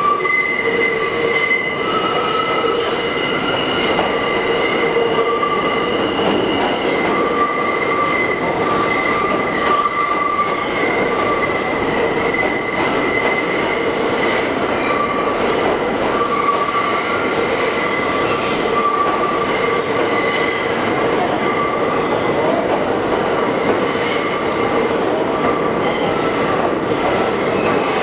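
New York City subway train running on steel rails with a steady rumble, its wheels squealing in several high held tones throughout.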